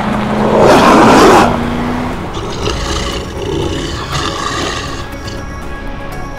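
Explosion sound effect: a loud roaring blast about a second long, near the start, fading into a rumble under background music.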